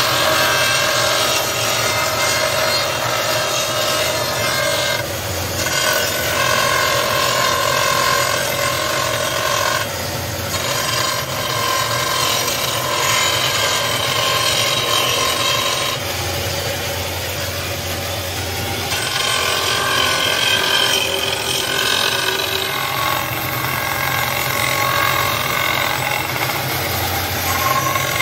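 Electric bamboo-processing machine running while a bamboo pole is pushed and turned in it, its cutter steadily grinding and rasping against the culm.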